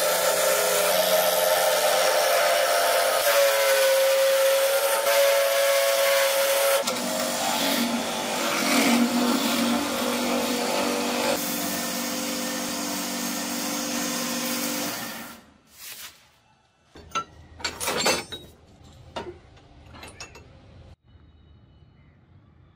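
Wood lathe spinning a wooden handle blank while a turning gouge cuts it, a loud hissing cut with a steady tone from the lathe, then the hand pressed on the spinning wood. About fifteen seconds in it stops abruptly, followed by a few sharp clinks and knocks of scrap metal being handled.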